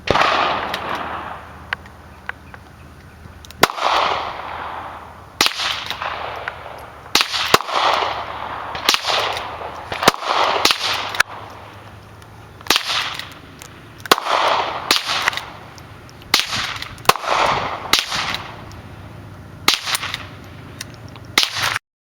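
A rapid string of bolt-action rifle shots, roughly one every one to two seconds, many with a ringing tail after the crack. The sound cuts off suddenly near the end.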